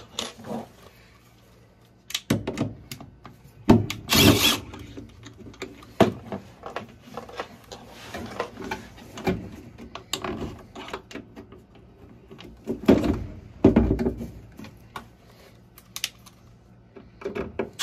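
Irregular clicks, clunks and scraping of metal parts and tools being handled while a replacement inducer motor assembly is fitted into a gas furnace, with louder knocks about four seconds in and again around thirteen to fourteen seconds.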